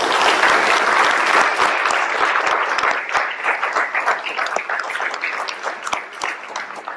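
Audience applauding, dense and loud at first, then thinning into scattered separate claps that die away near the end.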